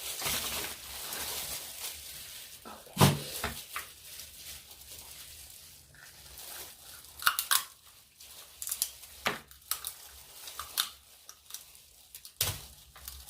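Crab leg shells being cracked and snapped apart by hand and teeth: a string of sharp irregular cracks and crunches with crinkling and chewing between them, the loudest crack about three seconds in.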